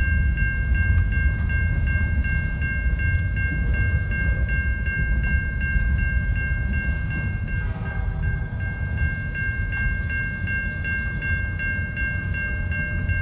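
Railroad crossing bell ringing in a rapid, even rhythm over the low rumble of a double-stack container freight train rolling past.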